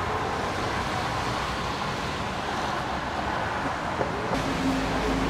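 Steady road-traffic and engine noise with no single event standing out. About four seconds in, a deeper, steady engine hum sets in.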